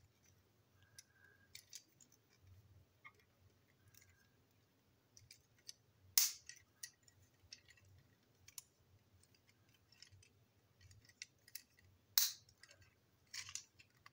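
Small plastic toy-train parts and a screwdriver being handled on a tabletop: scattered light clicks and taps, with two sharp, louder clicks about six and twelve seconds in.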